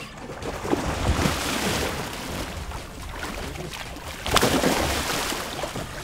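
Water splashing as a hooked tarpon thrashes at the surface beside the boat, with the loudest splash about four and a half seconds in.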